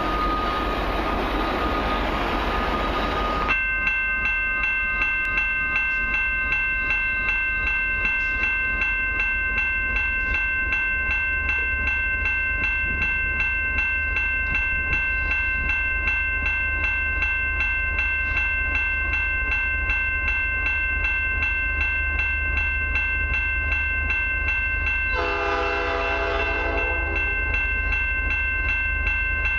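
A level-crossing warning bell starts about three and a half seconds in and rings on steadily in a regular repeating pattern, over a low rumble. Near the end the approaching train's lead locomotive sounds one air-horn blast of about two seconds, a horn the uploader takes for a Nathan P5. The first few seconds, before the bell, are a steady rush of noise.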